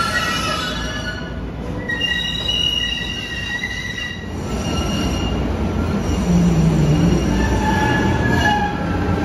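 Boston Green Line light-rail cars' steel wheels squealing in the subway: several high squealing tones as one train pulls away. About four seconds in, an approaching car rumbles, with lower squeals over it.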